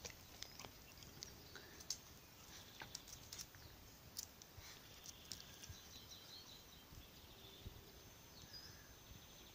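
Near silence: a few faint scattered clicks, and a little past the middle, faint bird chirps.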